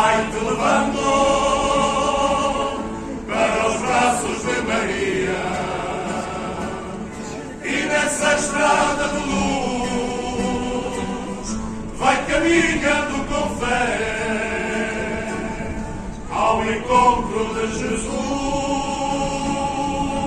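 Men's group singing an Azorean Cantar os Reis carol together, in long held phrases of about four seconds each with short breaks between them, accompanied by guitars.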